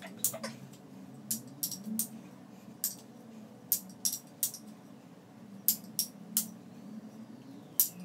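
Plastic Bandai KDX Kendama Cross ball clacking as it is caught in the cups and on the spike during tricks: about a dozen sharp clicks at irregular intervals.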